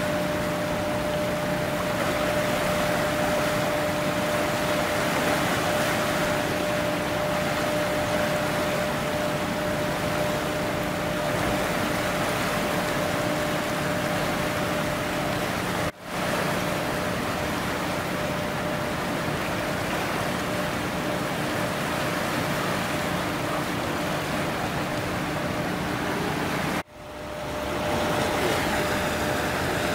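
Steady rush of turbulent river water swirling past a concrete pier, with a faint steady hum under it. The sound drops out for a moment twice.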